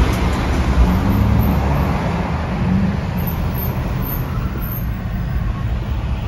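Steady rumble of a car being driven on the road: engine and tyre noise, with road traffic around it.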